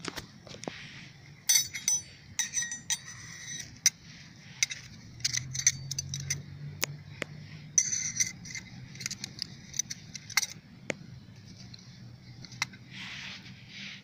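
Metal camping cutlery (spoon, fork and knife) clinking as it is handled and picked up: an irregular string of sharp clinks, some with a short metallic ring, coming in clusters.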